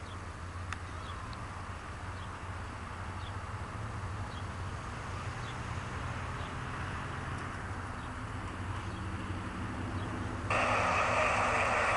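A diesel freight train approaching: the low rumble of its GE locomotives grows slowly louder. About ten seconds in, a locomotive air horn starts suddenly and holds one long blast.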